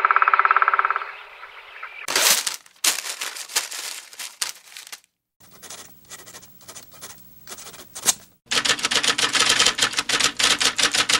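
A buzzing tone for about the first second, then runs of rapid sharp clicks, sparser in the middle and fastest and densest near the end.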